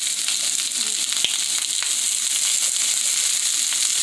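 Asparagus spears frying in olive oil in a skillet: a steady sizzle full of small crackling pops, with one sharper click about a second in.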